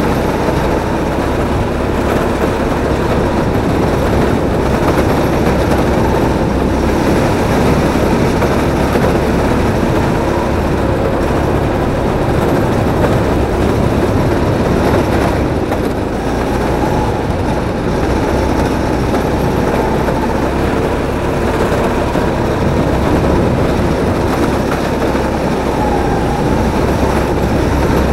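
Drift kart running at speed around a concrete track: a steady, loud rumble of its motor and wheels sliding and rolling on the smooth floor.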